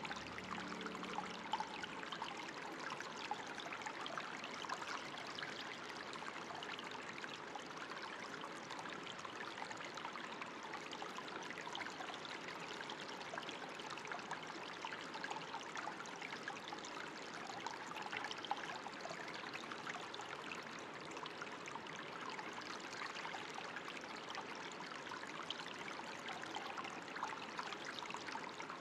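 Steady running water, trickling and splashing with a constant patter of small droplets.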